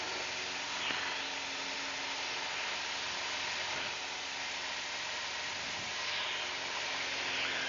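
Piper Cherokee's single piston engine and propeller running steadily at full takeoff power during the climb-out, heard from inside the cockpit as an even drone with a hiss.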